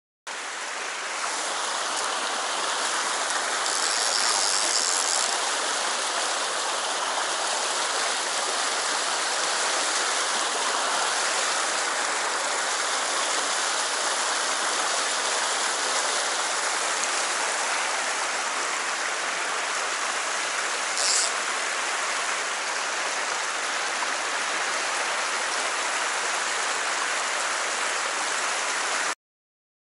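Shallow mountain stream rushing over rocks in rapids, a steady rush of water that cuts off shortly before the end.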